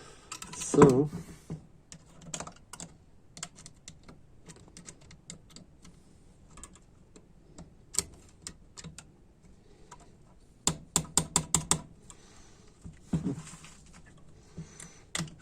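Light clicks and taps of small A604/41TE transmission valve-body parts (springs, a small piston and its retainer) being handled and pressed together by hand. They come in scattered single ticks, with a quick run of about seven louder clicks about two-thirds of the way through.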